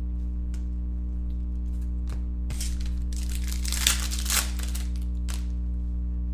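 Foil trading-card pack being torn open and crinkled by hand, the crackling loudest in the middle with two sharp tears, plus light clicks of cards being handled, over a steady low hum.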